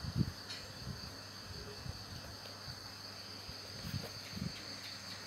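Steady high-pitched chirring of insects, with a few soft low thumps near the start and again about four seconds in.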